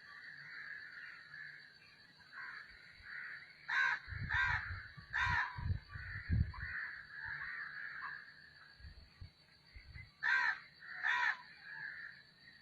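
Crows cawing: three harsh caws about four to five seconds in and two more near the end, over softer chirping of other birds. A steady high-pitched tone runs throughout, and a few low thumps come in the middle.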